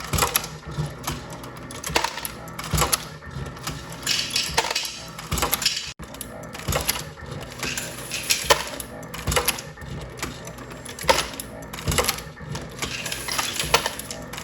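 Dillon Precision RL1100 progressive reloading press, cycled by a Mark7 AutoDrive motor, loading 9mm rounds: sharp metallic clacks about once a second over a steady motor hum, with brass clinking.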